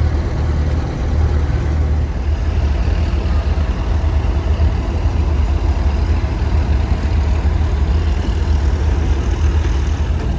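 A large engine idling steadily with a low rumble.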